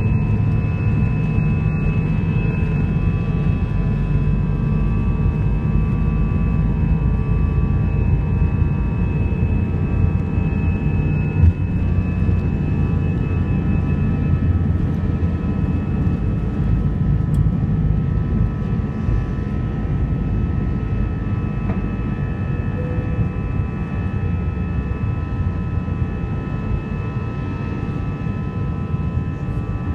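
Airbus A321 heard from inside the passenger cabin: a steady low roar of the jet engines and airflow, with several steady high tones running through it. One brief knock stands out about a third of the way in.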